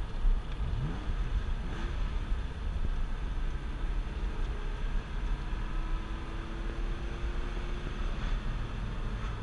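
The Porsche 997 Carrera S's 3.8-litre flat-six, heard from inside the cabin while driving. It climbs quickly through the revs about a second in, then runs steadily over a heavy low rumble of road and tyre noise.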